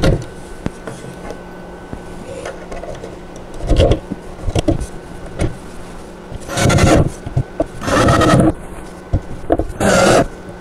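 Cordless drill driving screws down through a wooden high chair's seat into its base, in several short runs of under a second each, with a knock of handling before them.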